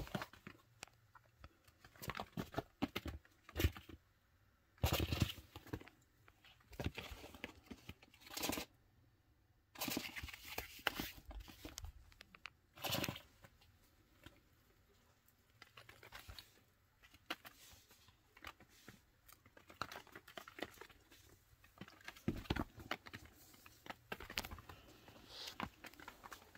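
Baby chinchillas scampering and hopping on a cloth-covered pen floor: irregular rustling and crinkling, with scattered sharp scratches and taps.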